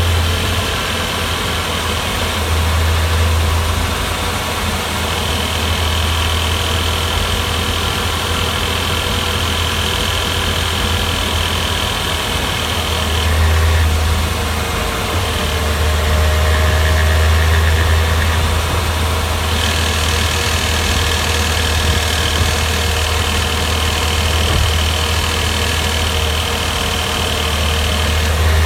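Porsche Boxster 986 S's 3.2-litre flat-six engine running steadily, a low drone that swells and eases, with a thin high whine that comes and goes several times.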